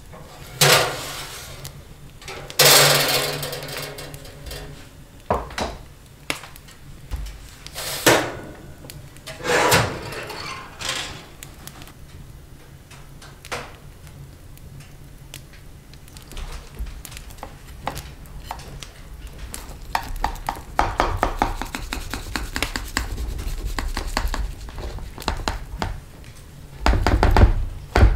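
Kitchen utensils knocking and scraping against dishes and cookware: several separate clatters, then a long run of quick, repeated scraping strokes, with a couple of dull thuds near the end.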